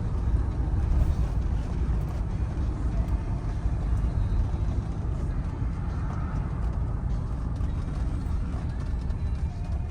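Steady low rumble of a 1983 Mercedes-Benz 300CD Turbo on the move, heard from inside the cabin: its 3.0-litre turbodiesel inline-five and road noise.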